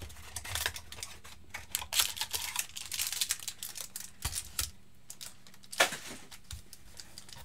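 Cardboard trading card box being opened by hand: the flaps and sleeve crackle and rub, and foil card packs crinkle as they are pulled out and set down, with a run of small clicks and one sharp tap about six seconds in.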